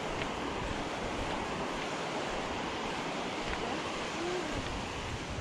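Steady wash of gentle surf on a sandy beach, with some wind on the microphone.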